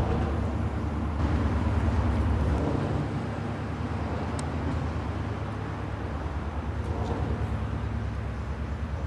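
A ship's diesel engine running with a steady low throb, mixed with the rush of water from a bow wave and wake; a little louder from about one to three seconds in.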